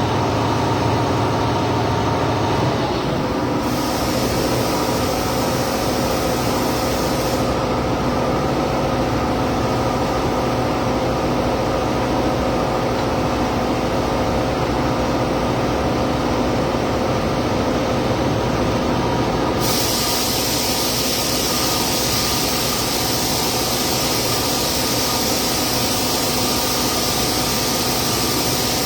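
Steady workshop machine noise with a hum of several tones. A hiss joins in about three seconds in, drops out a few seconds later, and returns about twenty seconds in.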